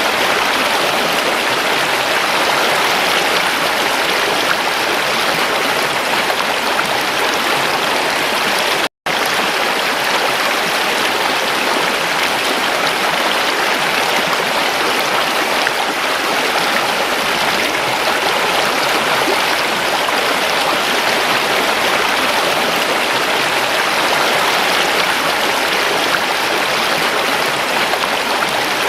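Stream water rushing and splashing steadily over rocks. It cuts out for an instant about nine seconds in, then carries on as before.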